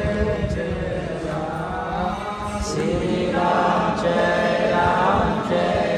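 A group of voices chanting an aarti hymn together, the melody moving up and down in long held notes.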